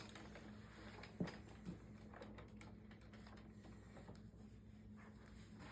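Near silence: room tone with a faint steady hum and two soft brief knocks a little over a second in.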